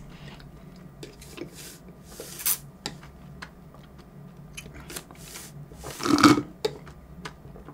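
Drinking an iced coconut smoothie through a straw: soft sucking and slurping with small wet mouth clicks, and one louder mouth sound about six seconds in.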